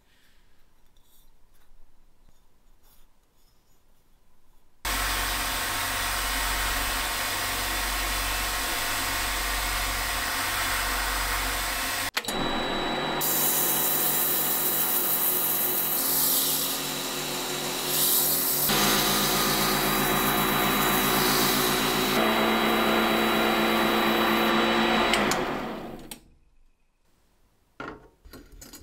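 Small variable-speed bench metal lathe running with a steady motor whine, spinning a brass cup while abrasive paper is held against it and sands with a loud hiss. The sound changes at several points and stops suddenly near the end, after which there are only a few light handling clicks.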